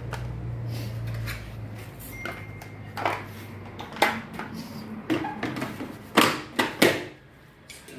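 Plastic clicks and knocks as the detergent dispenser drawer of a Samsung washing machine is handled and fitted into place, a handful of sharp clicks, the loudest ones close together about six to seven seconds in.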